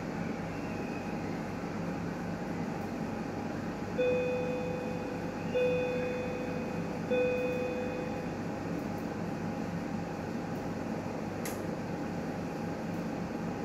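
Newmed Kronos S benchtop steam autoclave running with a steady machine hum, and sounding three alert beeps, each about a second long and about a second and a half apart. A single short click comes near the end.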